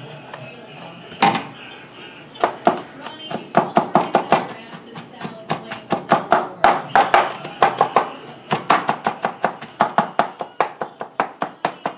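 Chef's knife rapidly chopping minced green chili peppers and garlic on a plastic cutting board, about five quick knife strokes a second. A single sharp knock sounds about a second in, before the chopping starts.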